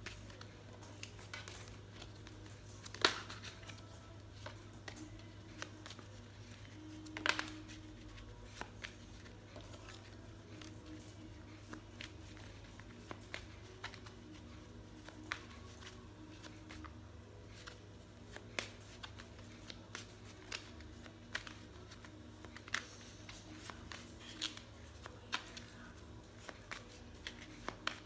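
A deck of oracle cards shuffled by hand: soft rustling slides and light taps of the cards, with two sharper clicks about three and seven seconds in, over a steady low hum.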